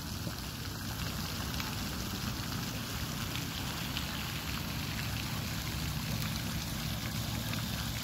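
Steady trickling and splashing of water in a shallow stream, an even rushing hiss.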